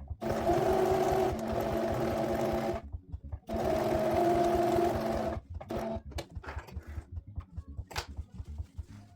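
Domestic electric sewing machine stitching in two runs of about two and a half and two seconds with a short stop between, a steady noisy hum. After it stops, scattered light clicks and knocks follow, one sharper about eight seconds in.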